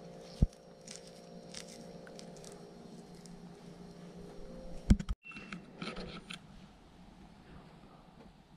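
Hands working a wiring harness: wires rustling and scraping on a steel bench as plastic wire nuts are twisted on, with a sharp click about half a second in and a loud cluster of clicks and taps about halfway through.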